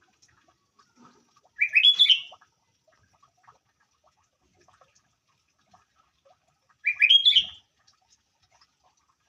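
Sooty-headed bulbul (kutilang) singing two short phrases about five seconds apart, each a quick run of rising, bubbly notes.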